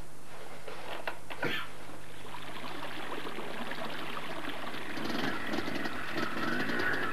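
Small hill stream running and splashing over rocks. From about five seconds in, an enduro motorcycle engine comes in and grows louder.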